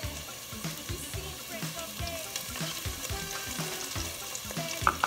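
Diced onions and red peppers sizzling as they fry in oil in a stainless steel pot, stirred with a wooden spoon. Background music with a steady beat runs underneath.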